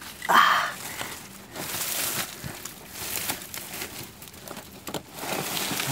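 Dry grass stems and twigs rustling and crackling as hands push through brush, in irregular bursts.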